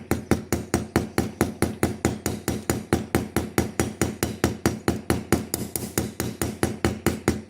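Small hammer tapping rapidly and evenly on the end of a pocket-knife handle pin, about five light strikes a second: the pin being peened over just enough to hold it in place.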